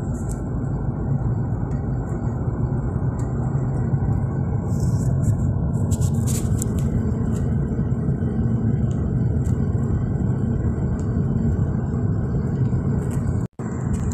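Steady low road rumble inside a moving car's cabin, the tyres and engine running at a constant speed. The sound drops out for a split second near the end.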